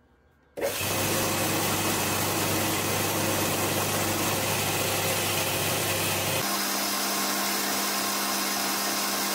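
Belt grinder running, its abrasive belt grinding the steel head of an axe to strip paint and flatten it. The sound starts suddenly, stays steady and loud with a constant hum, and the hum shifts to a higher pitch about six seconds in.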